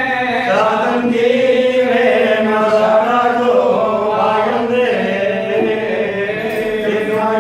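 A group of priests chanting mantras together, a continuous chant with long held notes.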